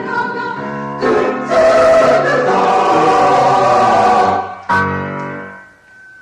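Mixed choir of men's and women's voices singing a Japanese children's song. The voices grow louder, then end on a final chord that dies away.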